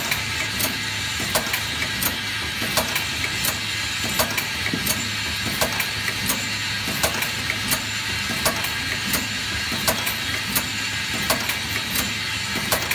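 Eye-drop bottle filling and capping machine running, with a steady motor hum and a few sharp mechanical clicks a second as it works.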